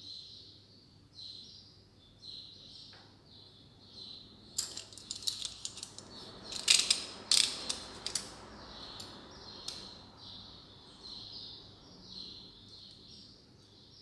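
Snap-off utility knife's blade being slid out of its handle, a quick run of ratcheting clicks starting about four and a half seconds in and lasting some three and a half seconds, with a couple of single clicks after. Faint high chirping goes on behind.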